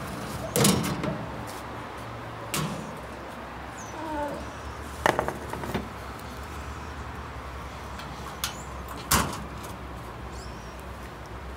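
Metal baking pan clanking and scraping as it is pulled out of a wood-fired stove's oven and set down on the iron stovetop, a series of separate knocks, then the oven door knocked shut near the end.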